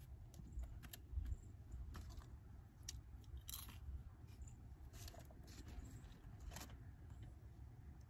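Faint scattered clicks and taps from handling a Microsoft Surface Pro and pressing its keyboard cover and touchpad, over a low steady rumble.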